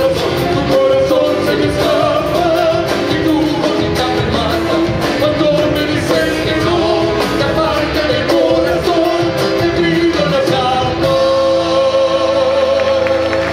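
Live band with accordion, guitars, keyboard and drums playing a song with male vocals, ending on a long held note near the end.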